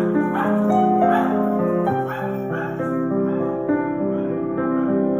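Grand piano played solo: a run of bright, loud chords about twice a second, then a softer stretch of held notes from about three seconds in.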